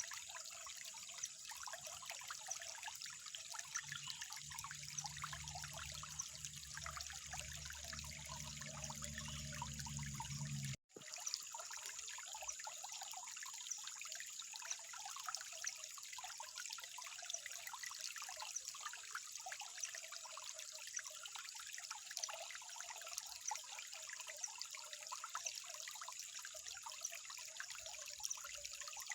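Water trickling steadily, a continuous patter of small splashes and drips. The sound cuts out for a split second about eleven seconds in, and a faint low hum underneath stops there.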